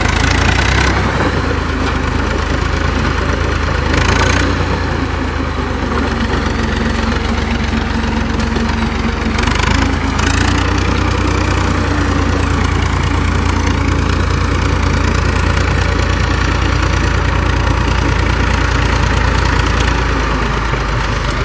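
HMT 3511 tractor's diesel engine running steadily under load, pulling a 7-foot Punni super seeder whose rotor churns through paddy stubble: a low engine drone with a wash of rotor noise over it. A few brief knocks come near the start, about four seconds in, and again around ten seconds.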